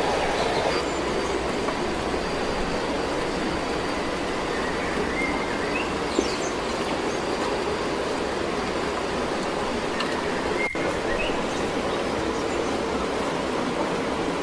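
Steady outdoor rushing noise with a few short bird chirps scattered through it.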